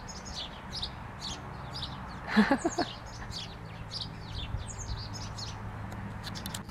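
Black-capped chickadee calling: a quick run of short, high chip notes throughout. About two and a half seconds in there is a brief, louder sound, lower in pitch and voice-like.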